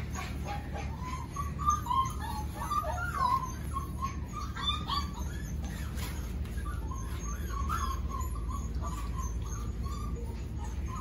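Five-week-old golden retriever puppies whining and squeaking: many short, high, chirp-like whimpers that come thickest in the first half and thin out later, with light ticking of claws on a tile floor.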